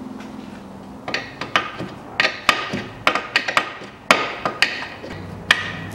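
Irregular sharp metallic clinks and knocks, about a dozen over four seconds, of a steel wrench on the ball joint nut and steering knuckle as the nut is snugged up.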